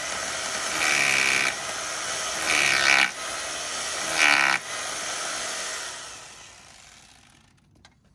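Corded Makita drill boring into a concrete block with a 5/32-inch masonry bit, to take 3-inch screws that fasten the wooden form to the block. The motor runs continuously with four short louder surges in the first few seconds as the bit bites, then runs steadier and fades away over the last few seconds.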